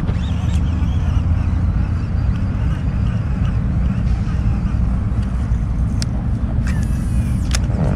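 Steady low wind rumble buffeting the microphone on open water, with a few sharp clicks near the end.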